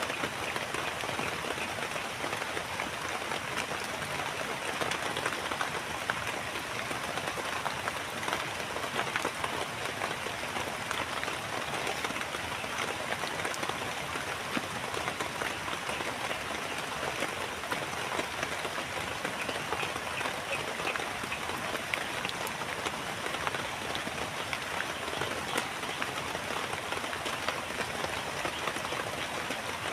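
Heavy rain falling steadily, a dense, even patter of countless drops with no let-up.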